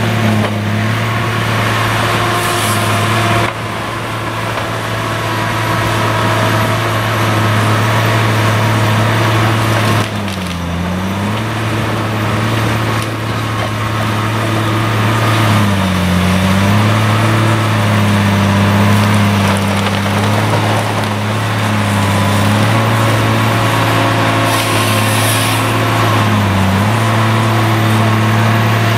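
Tigercat LH845C tracked harvester's diesel engine running steadily under load, its note dipping briefly a few times as the hydraulics take up load. Over it come bursts of wood cracking and splintering as the Logmax 9000 head grips and delimbs spruce stems.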